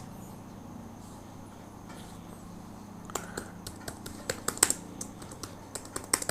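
Typing on a computer keyboard: a run of irregular keystrokes starts about three seconds in, over a faint low hum.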